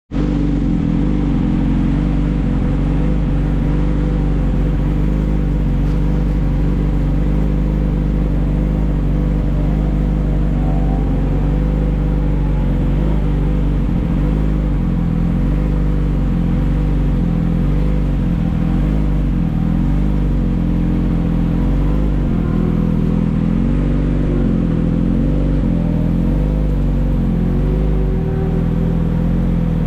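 Motorcycle engine running continuously under a heavy low rumble, its pitch wavering up and down.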